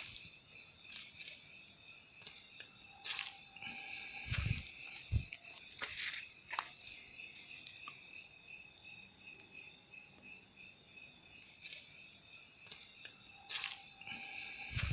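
Steady night chorus of crickets and other insects, several high trills layered together, with a couple of low thumps about four and five seconds in.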